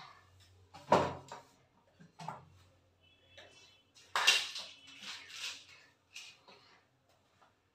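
Scattered knocks and clatter of items being moved and set down on a kitchen counter, mixed with the rubbing of a cleaning cloth as the counter and wall tiles are wiped. The loudest knocks come about a second in and about four seconds in, with a brief light ringing tone just before the second.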